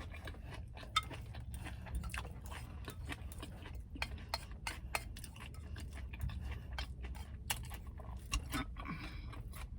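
Close-up chewing of a mouthful of kale salad with bacon: a run of small, irregular wet clicks and crunches over a steady low hum.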